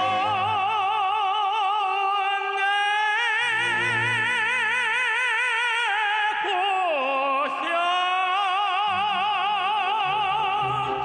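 Music: a trained, operatic-style voice sings long held notes with wide vibrato over accompaniment, gliding down to a lower note about seven seconds in.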